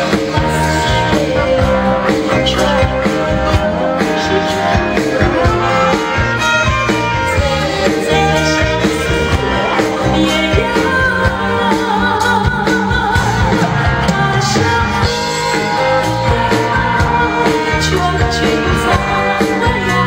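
A woman sings a Mandarin pop song into a microphone, backed by a live band with drum kit at a steady, upbeat beat.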